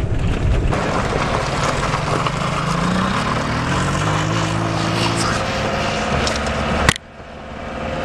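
Sidecar motorcycle's engine revving up, its pitch rising as it pulls away over gravel, over a steady rush of wind. A sharp click comes near the end, after which the sound drops and a quieter, steady engine drone carries on.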